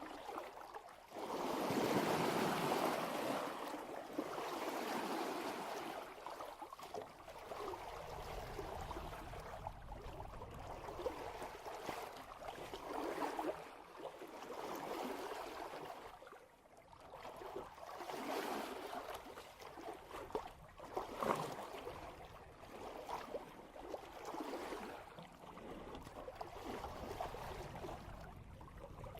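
Water rushing and splashing along a sailboat's hull as it sails downwind, swelling and fading irregularly with each wave. There is one sharper slap about two-thirds of the way through.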